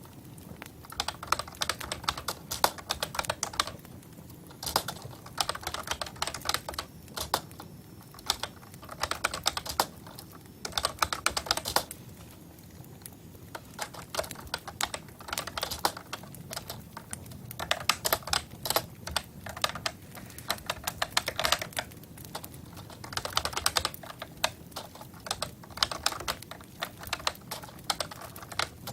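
Computer keyboard typing in quick runs of key clicks, each run lasting a second or two with short pauses between.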